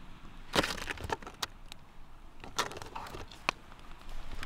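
Aluminium foil packet crinkling as it is handled, a handful of short crinkles and light clicks spread through the few seconds.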